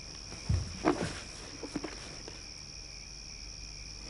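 Handling of a lidded jar as its lid is lifted off: a soft low thump, then a few light clicks and knocks within the first two seconds, over a steady high background drone.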